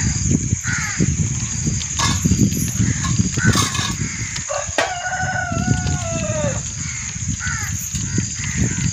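A rooster crows once, about five seconds in: a long call that holds its pitch and then falls away at the end. Around it run a steady high insect drone with repeating short pips, crows cawing now and then, and a low rumbling noise.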